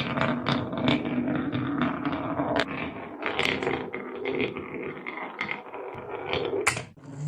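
Marbles rolling down a wooden marble run: a continuous rolling rumble with many sharp clacks as they hit the track and each other.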